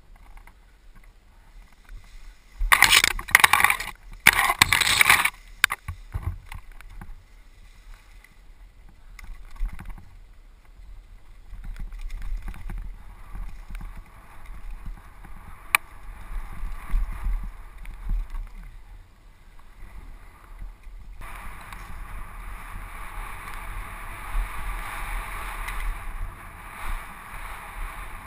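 Mountain bike riding down a dirt downhill trail, heard from a camera on the bike or rider: a steady low rumble and rattle with wind noise on the microphone. Loud rough rustling and clattering comes about three seconds in, and a steadier hiss in the last several seconds.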